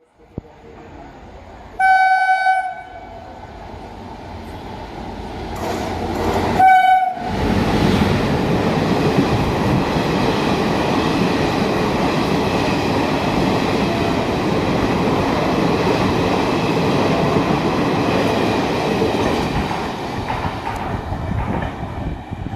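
A WAP-7 electric locomotive sounds its horn twice, a blast of about a second and then a shorter one. An express passenger train then passes at speed without stopping, with a steady rumble and rattle of wheels and coaches that eases off near the end.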